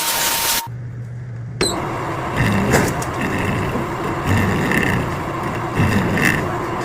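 Machine noise of a CNC lathe at work: a steady hiss and hum with irregular louder bursts every second or so. It opens with about half a second of loud hiss that cuts off abruptly, followed by a brief low hum.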